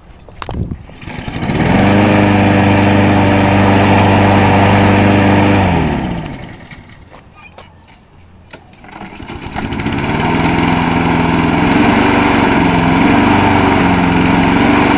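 Two push-mower engines are pull-started warm, one after the other. A Husqvarna mower catches at once with a quick pull, runs steadily for about four seconds, then is shut off and winds down. About two seconds later a Honda Harmony mower's overhead-cam engine catches on a quick pull and runs with its pitch rising and falling a little.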